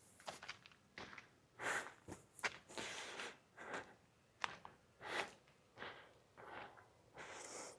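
Footsteps on a dry trail: a run of uneven scuffing steps, about one to two a second.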